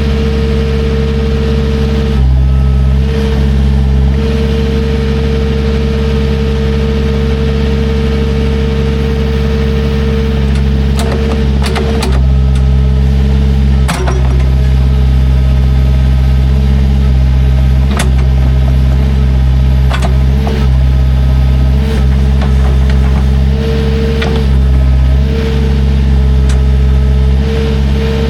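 Engine of a heavy digging machine running steadily under load, with a steady whine and a few sharp clanks.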